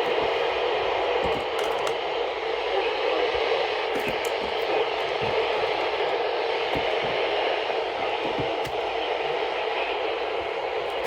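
Steady hiss of static from a NOAA weather radio receiver with no programme audio, broken by scattered faint clicks and crackles.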